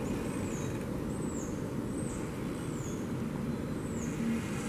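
Steady low outdoor rumble, with a small bird's high, thin, falling chirp repeated about once a second over it.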